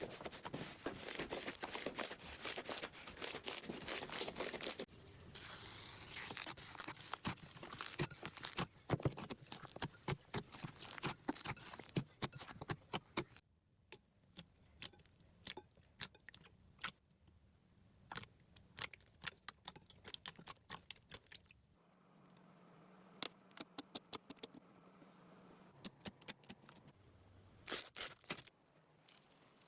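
Slime being squished and pressed by hand: dense sticky crackling with many sharp clicks and pops. The texture changes abruptly three times, from a thick crackle to sparser, crisper clicks.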